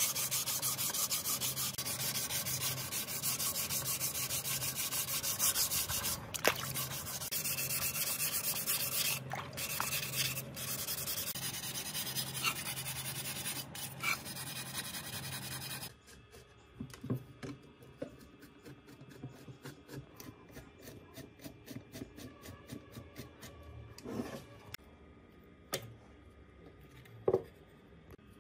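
Sandpaper scrubbing the wet metal frame of a speaker driver, a steady rubbing for about sixteen seconds that cuts off suddenly. After that there are only scattered faint clicks and taps.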